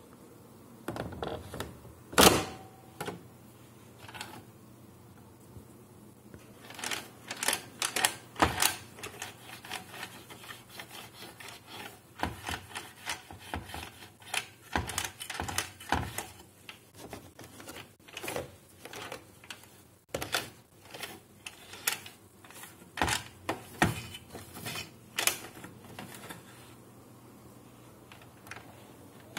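Plastic clicks, knocks and scraping from parts being handled inside an open Samsung colour laser printer, with a cloth rubbing over its inner panel. The sharpest knock comes about two seconds in, and a quiet stretch follows for a few seconds before dense clicking and rubbing sets in.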